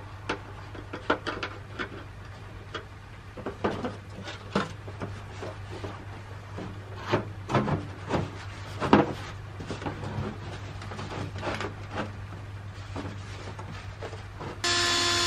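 Galvanized sheet-metal stove pipe sections and an elbow knocking, clanking and scraping as they are handled and pushed together. Near the end, a cordless drill starts running with a steady whir.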